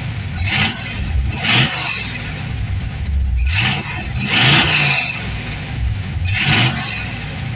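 Chevy Nova engine idling, blipped five times with quick throttle revs that climb and fall back to idle. It is freshly tuned with new plugs, cap and rotor, and the MSD distributor's blue advance springs make it more snappy.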